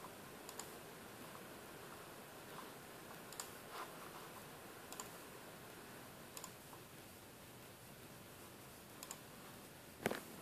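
A few faint, short clicks at irregular intervals one to two seconds apart over quiet room hiss, with a louder click near the end.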